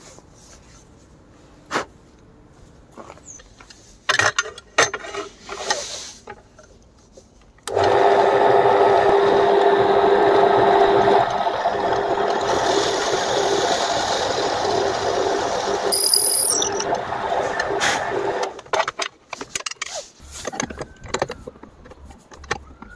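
Bench drill press running with a steady hum for about ten seconds, its bit boring lengthwise into a piece of antler, with a hissier cutting sound partway through. Before it, scattered knocks and clicks of the antler being handled at a vise. After it, clicks as a small drill-press vise is screwed tight.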